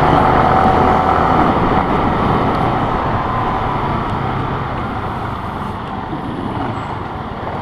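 Road and traffic noise from a motorcycle ride: a steady rushing noise with a low engine hum underneath, slowly getting quieter.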